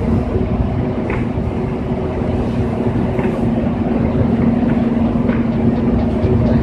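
A steady low electrical hum over a rumbling background noise.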